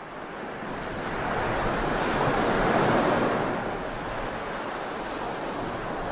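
Ocean surf washing onto a sandy beach. The rush of the waves builds to its loudest about halfway through, then eases slightly.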